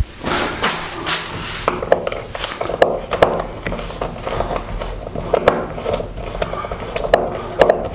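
A few footsteps, then irregular small metallic clicks and scrapes, several a second, as the screws of a wall switch plate cover are worked loose with a small hand tool rather than a screwdriver.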